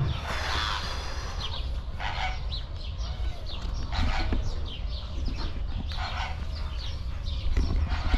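Fowl calling with scattered short clucks and honks, one after another, over a low steady rumble.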